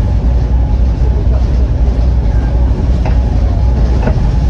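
Volvo B7TL double-decker bus's six-cylinder diesel engine running while the bus is under way, heard on board as a loud, steady, deep rumble. A couple of brief sharp knocks come about three and four seconds in.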